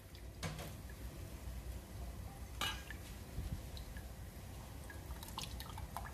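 Faint drips and small splashes of buttermilk water pressed out of a soaked vada between the palms, falling into a steel bowl: a few short sharp drips, the clearest about two and a half seconds in and several more near the end.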